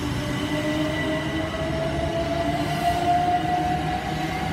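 Southern Class 377 Electrostar electric multiple unit pulling away from the platform, its traction motors whining in a slowly rising pitch as it gathers speed over the rumble of the wheels.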